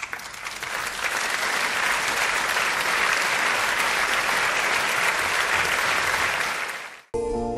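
A large crowd applauding, a dense steady clatter of clapping that swells in, holds, then fades and cuts off after about seven seconds. Music with guitar starts in the last half second.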